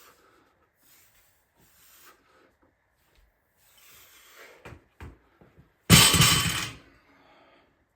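A loaded barbell comes down on the floor about six seconds in with a loud crash and a short metallic rattle that fades out, after a few quieter knocks.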